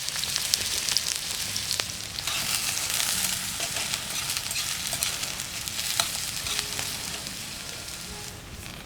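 Food sizzling as it fries in a hot pan, a steady hiss dotted with small crackles and pops, which quietens near the end.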